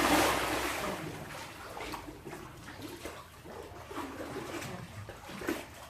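Water splashing, loudest in the first second, then lighter sloshing and dripping.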